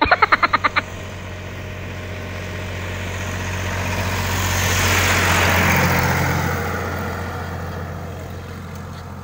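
A motor vehicle passing on the road: engine hum and tyre noise swell to a peak about halfway through and then fade, the pitch dropping as it goes by. A brief rapid rattle opens it.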